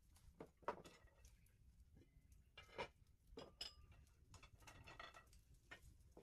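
Faint, irregular clinks and knocks of bowls and utensils being handled, about eight in all, one a little past the middle with a brief high ring.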